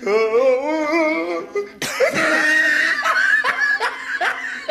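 People laughing: a long, wavering, drawn-out laugh first, a noisy burst just under two seconds in, then a run of short falling laughs.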